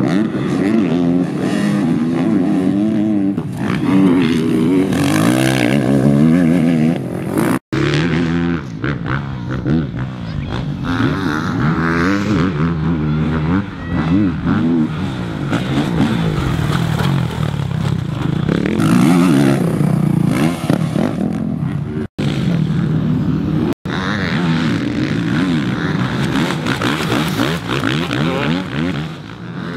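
Motocross dirt bike engine revving up and dropping off again and again as it is ridden over supercross jumps, its pitch rising and falling with the throttle. The sound breaks off abruptly three times.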